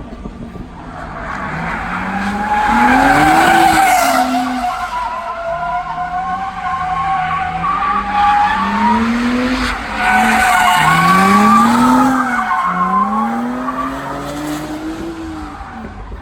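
Drift car's engine revving up and dropping back again and again under throttle, with its tyres squealing in long, wavering screeches as it slides. It is loudest twice, a few seconds in and again past the middle.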